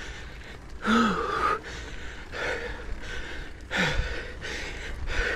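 A cyclist panting hard on a steep climb, about four loud gasping breaths, two of them starting with a short groan. He is short of breath while recovering from the flu.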